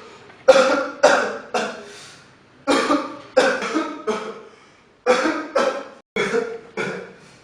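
A person coughing repeatedly, in three short fits of three or four coughs each. Every cough starts sharply and dies away quickly.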